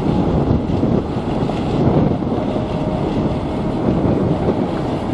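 Wind buffeting the microphone on the open deck of a moving cruise ship: a loud, steady rushing noise.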